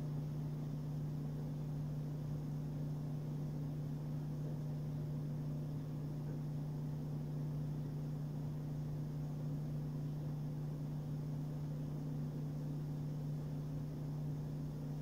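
Steady low hum of room background noise, with no other events.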